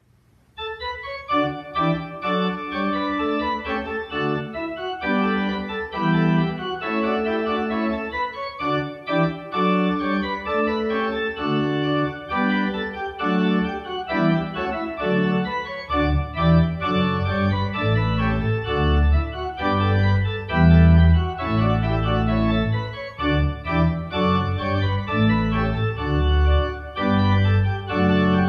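Organ music: sustained chords, with deep bass notes joining about halfway through.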